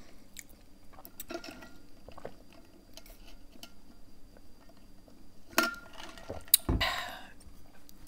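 Close mouth sounds of sipping a drink through a straw and swallowing, with faint wet clicks. Near the end there is a sharp knock as a plastic tumbler is set down on a table, then a short breathy rush.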